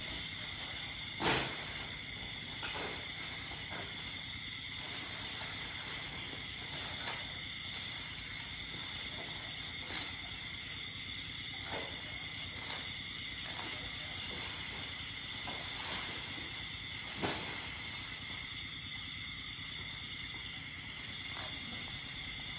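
Steady chorus of night insects, cricket-like, a constant two-pitched high drone, with a few sharp snaps as elephants feed on sugarcane and grass.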